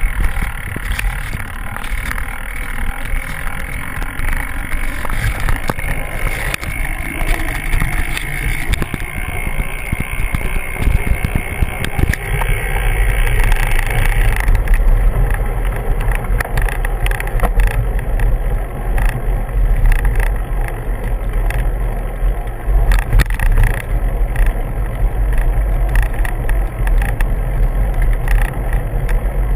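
Bicycle ridden on a dirt and gravel road, heard from a camera mounted on the bike: a steady rumble of tyres and wind on the microphone, with frequent small knocks and rattles over the rough surface. The low rumble grows heavier about halfway through.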